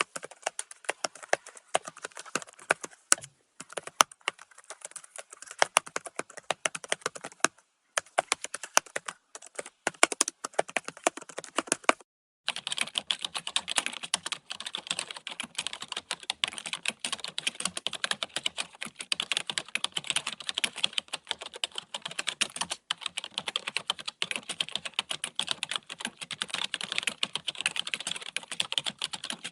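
Computer keyboard typing, a quick run of key clicks. A short break about twelve seconds in, after which the typing is faster and denser.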